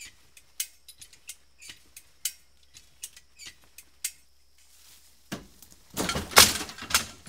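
Sharp ratcheting clicks, about two a second, from a hand-operated rope come-along being levered. About five seconds in comes a loud clattering crunch lasting about two seconds as the old Willys CJ-5 lurches sideways.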